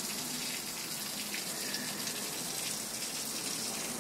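Water running steadily, an even hiss with no breaks.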